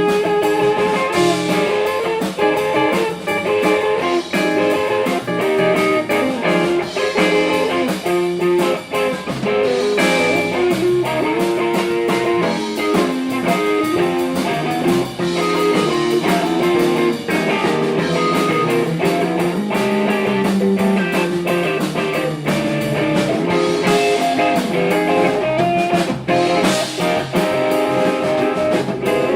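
Guitar music with a blues feel, continuous, with picked notes changing every second or so.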